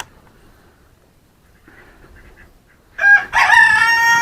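Rooster crowing once about three seconds in: a short opening note, then a long held note.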